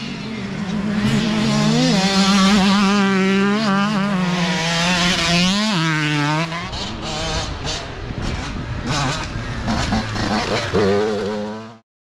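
Youth dirt bike engines revving hard, pitch rising and falling with throttle and gear changes as the riders accelerate away up the track. The sound cuts off abruptly near the end.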